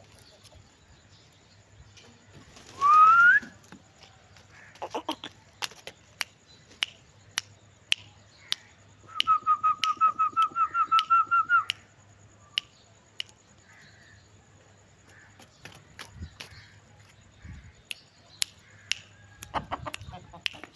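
A single rising whistled note about three seconds in. Around ten seconds in comes a quick run of about fifteen short repeated whistled notes, with scattered sharp clicks and taps in between.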